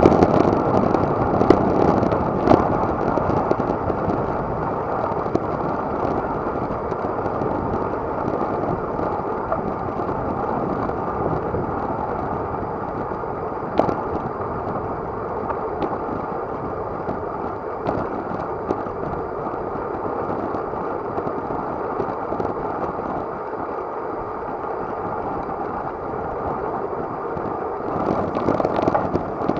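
Steady rush of wind and road noise on a road bicycle's action camera while riding, with a few sharp clicks and knocks.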